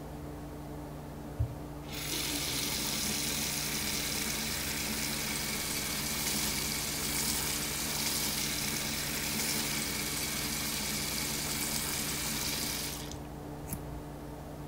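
Single-handle bathroom sink faucet running, water splashing into the basin for about eleven seconds, then shut off. A short thump comes just before the water starts, and a small click follows after it stops.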